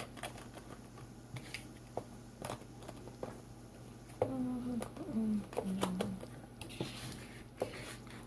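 Small plastic slime containers clicking and knocking as they are handled and stacked inside a larger plastic container, a scattered series of light taps.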